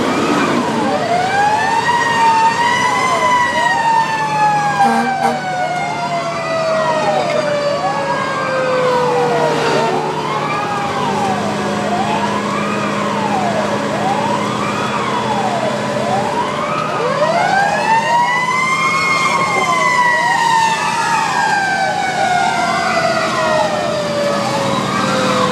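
Fire truck sirens on the move, heard from inside the cab. One siren rises in pitch and then falls away slowly, twice, over a second siren that sweeps up and down about every second and a half.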